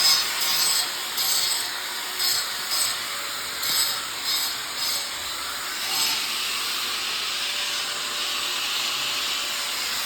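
Sawing during the drain repair: a run of short rasping saw strokes that gives way, about six seconds in, to steady continuous cutting.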